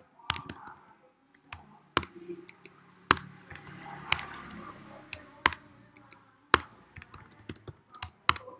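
Typing on a computer keyboard: quick, irregular key clicks, with a few louder keystrokes standing out about once a second.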